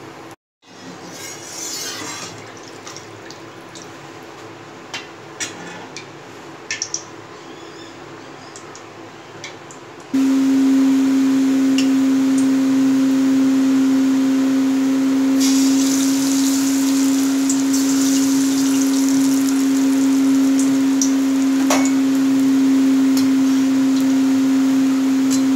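Malpua batter frying in hot refined oil in an aluminium kadhai, sizzling and crackling from around the middle onward. A loud steady mechanical hum switches on suddenly a little before halfway and is the loudest sound throughout.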